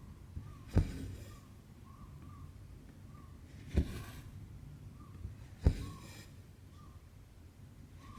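Needle popping through taut 18-count Aida cloth three times, each pop followed by a short rasp of cotton thread being drawn through the fabric.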